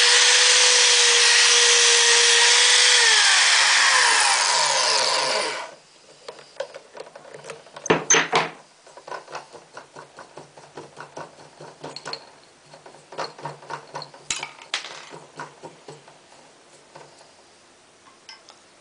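Electric hand drill in a drill stand running at speed, with sandpaper rubbing on the spinning wooden toy wheel in its chuck to remove burrs. About 3 s in it is switched off: the whine falls in pitch as it spins down and stops. After that come light clicks and taps of handling at the drill, with a louder clatter about 8 s in.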